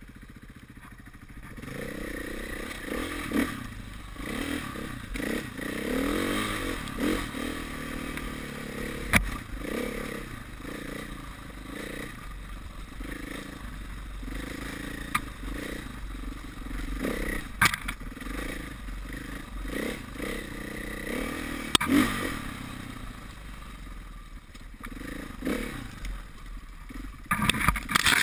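KTM 500 EXC enduro bike's single-cylinder four-stroke engine revving up and down as it is ridden over rough trail, with clatter and knocks from the bike and ground. A cluster of loud knocks comes near the end.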